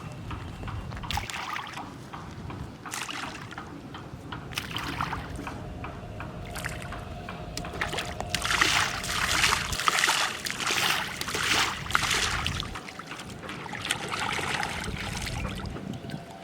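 Water sloshing and splashing in irregular bursts, busiest and loudest in the middle.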